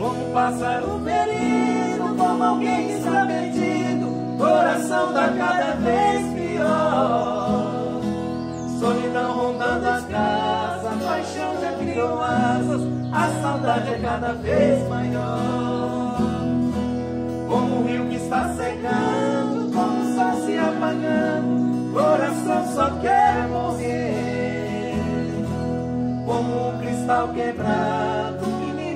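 Live acoustic music: three guitars, one of them a nylon-string classical guitar, strummed together while two men sing.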